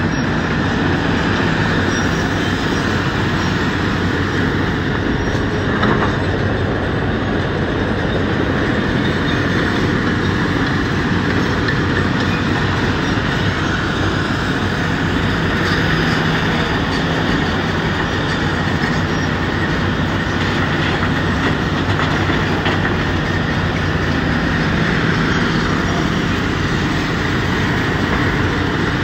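Mobile tracked rubble crusher running steadily: its diesel engine drones under a constant rattle of brick and concrete rubble going through the vibrating spring-mounted feeder, with an excavator working right beside it.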